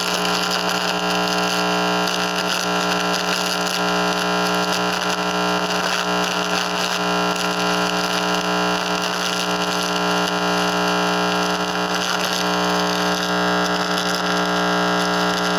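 Microwave receiver's audio output: a loud, steady electronic buzz of static layered with many steady hum tones, which the owner takes for RF signals irradiating his room.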